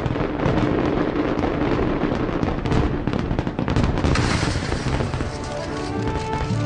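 Fireworks bursting and crackling, many bangs in quick succession. Music with held notes comes up under them about five seconds in as the bangs thin out.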